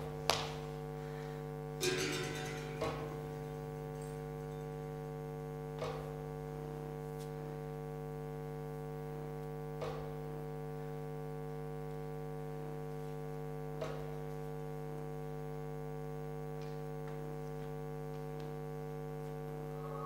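Steady electrical mains hum with several overtones. Over it come a few soft knocks: a couple in the first three seconds with a brief hiss about two seconds in, then single knocks about four seconds apart.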